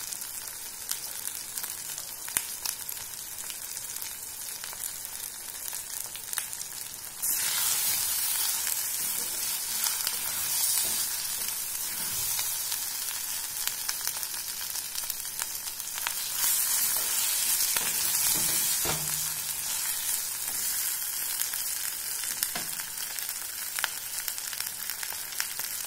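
Pepper chicken masala sizzling in a clay pot while a wooden spatula stirs it, with faint scrapes of the spatula. The sizzle gets suddenly louder about seven seconds in.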